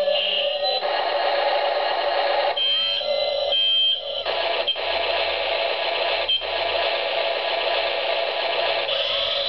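Toy remote-control excavator's built-in electronic sound effects playing through its small speaker: a tinny, steady electronic tone that changes pattern every second or two while the toy turns and moves its arm.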